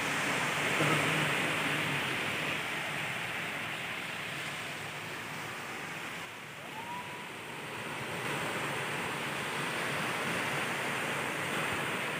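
Surf breaking on a sandy beach, a steady rushing wash that dips slightly in the middle and swells back.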